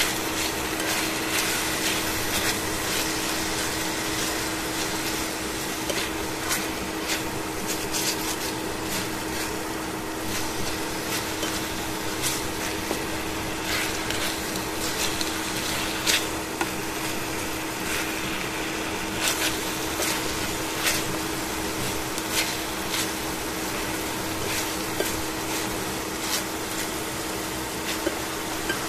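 Chicken pieces sizzling steadily in a stainless steel frying pan, with tongs clicking and scraping against the pan now and then. A steady hum runs underneath.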